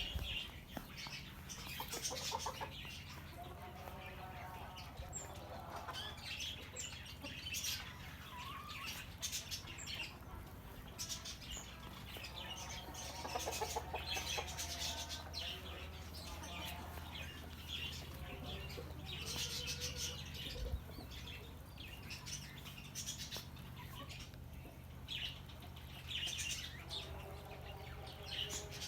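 Small birds chirping and singing throughout, mixed with lower, repeated calls that sound like hens clucking, over a steady low hum.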